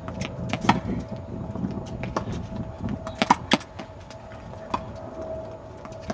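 Sharp pops of tennis balls being struck by rackets and bouncing on a hard court, clustered about a second in and again around three seconds in, over a steady faint hum.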